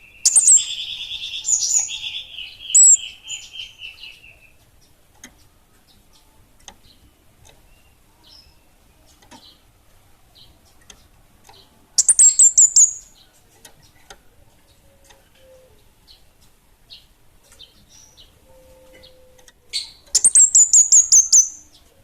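Small songbird of the kind sold as 'kemade bunga api' singing in vigorous bursts: three bouts of rapid, high trilled notes that step slightly down in pitch, with faint scattered chirps between them.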